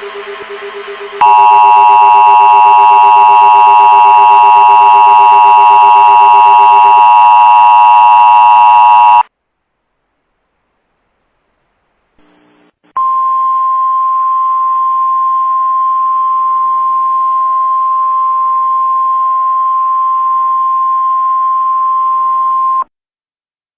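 Emergency Alert System tones: a quieter pulsing tone gives way about a second in to the loud EAS two-tone attention signal, which holds steady for about eight seconds and cuts off. After a few seconds' silence a single steady 1050 Hz alert tone, the NOAA Weather Radio warning alarm, sounds for about ten seconds and stops abruptly.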